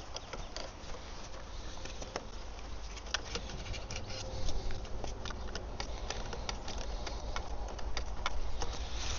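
Rain pattering steadily, with many scattered sharp ticks of drops.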